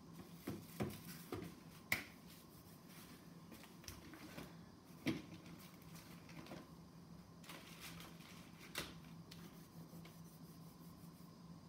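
Scattered light clicks and taps, a cluster in the first two seconds and a few more spread through the rest, the sharpest about two and five seconds in, over a faint steady low hum.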